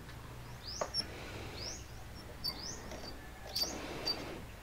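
A bird chirping over and over, short rising high notes about once a second, with a couple of faint clicks.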